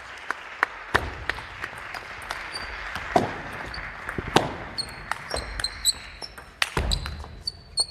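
Table tennis rally: the ball clicking in quick succession off the rackets and the table, about three clicks a second, with a few harder hits and heavy thuds of the players' feet. Shoes squeak on the wooden hall floor in the second half.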